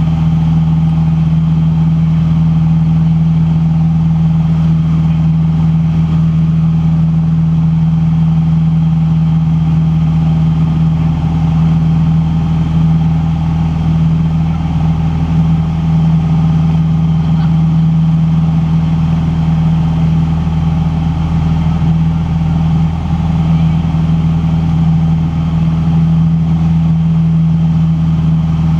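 Van's RV-8 light aircraft's piston engine and propeller droning steadily in flight, heard from inside the cockpit, with a strong low hum that holds one pitch and level throughout.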